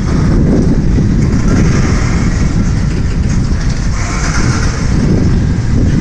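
CSX mixed freight train's tank cars rolling past, their steel wheels on the rails making a steady low-pitched noise.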